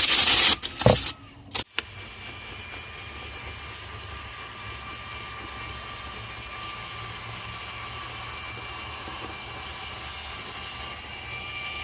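Drill spinning a rotary dryer-vent brush inside the vent duct: a loud rushing scrape in the first second with a couple of knocks, then a steady, quieter whir with a faint motor whine.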